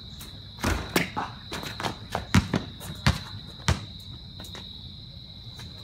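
A basketball bouncing on a concrete driveway as it is dribbled: several sharp, irregular bounces over the first four seconds or so. Underneath is a steady high drone of insects.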